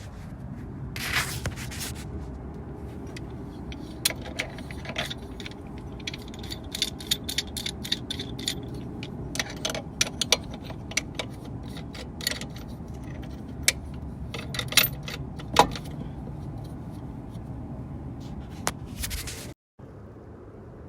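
Small metal brake parts and tools clinking, tapping and scraping as the caliper hardware is handled, with irregular sharp clicks throughout and a louder knock about two-thirds of the way in.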